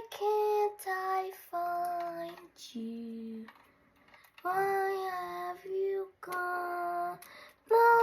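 High voices, a child's or a woman's, singing a melody in short phrases of held notes with brief pauses between them.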